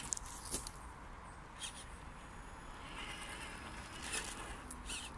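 Traxxas TRX-4 Ford Bronco RC crawler creeping over dry sandy ground: scattered crunches and clicks of its tyres on sand, roots and twigs.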